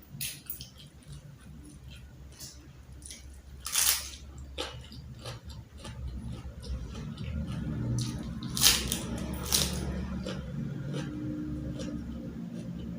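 Close-up eating sounds: chewing with several sharp crunches and squishes of food. A low hum builds about halfway through and holds.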